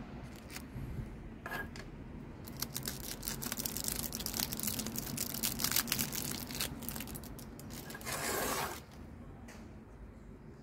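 Hands unpacking a typewriter ribbon spool from its tin: the crinkly wrapping crackles and rustles for several seconds, then a short scraping rub comes near the end.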